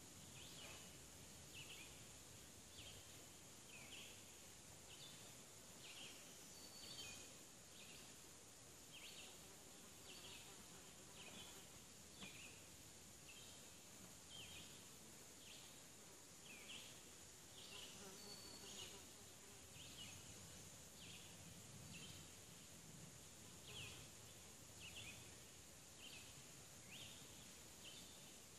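Quiet forest ambience: a steady high insect hum, with a short high chirp repeated about one and a half times a second.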